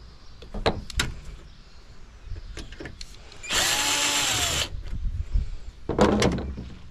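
A power drill-driver runs for about a second, its motor pitch rising and then falling, between sharp clicks and a knock as a computer tower is taken apart.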